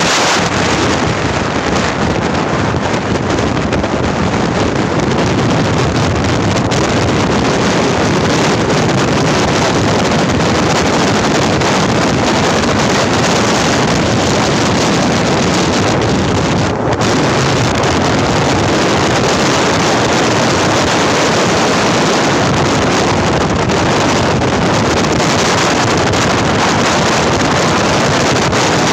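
Loud, steady rush of wind and road noise from a vehicle driving fast, with wind buffeting the microphone.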